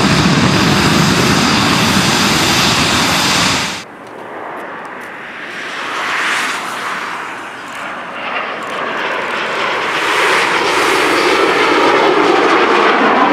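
Eurofighter Typhoon's two EJ200 jet engines running loud and steady at close range, cut off abruptly about four seconds in. Then a Panavia Tornado's RB199 jet engines on approach with gear down, starting quieter and growing louder as the jet comes nearer.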